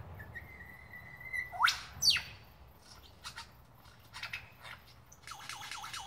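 Lyrebird singing a varied string of calls: a held whistle, then two loud upward-sweeping notes, then short scattered notes and a fast chattering run near the end.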